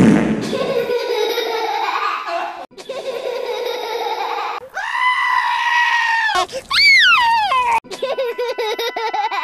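A string of edited, sound-altered versions of George Pig's cartoon laugh, one after another. A low rough burst comes at the very start, then laughter, a long held high cry about five seconds in, a sharply falling wail near seven seconds, and a wobbling laugh over steady high tones at the end.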